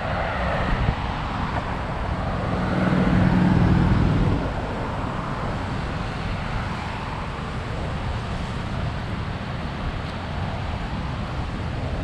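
Road traffic on a city avenue, with one vehicle's engine passing close and loudest about three to four seconds in.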